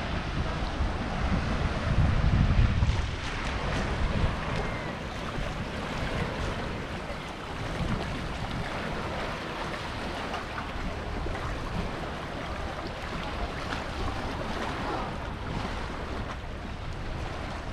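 Small sea waves washing onto a pebble beach and shoreline rocks, with wind buffeting the microphone. A stronger gust makes a low rumble about two seconds in.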